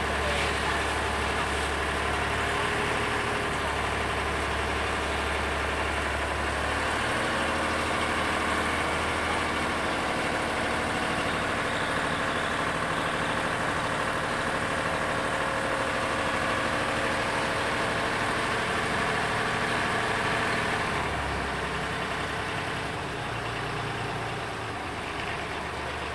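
Engine of a small wooden passenger boat running steadily with a low hum. It gets quieter about 21 seconds in.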